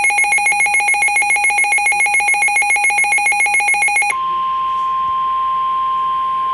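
Weather radio alert: a rapid electronic warble of about ten pulses a second until about four seconds in, then the single steady 1050 Hz NOAA Weather Radio warning alarm tone announcing a severe thunderstorm warning.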